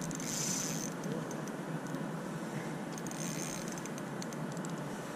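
Steady hiss of wind and water noise, with two short high whirring bursts from a spinning reel being cranked, near the start and about three seconds in, as line is wound in on a hooked trout.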